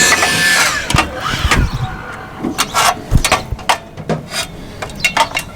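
Car sounds as people set off: a string of sharp knocks and clicks, such as doors and handles being worked, loudest in the first second.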